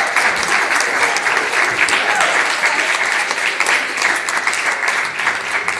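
Audience applauding: many hands clapping in a dense, steady patter that eases a little near the end.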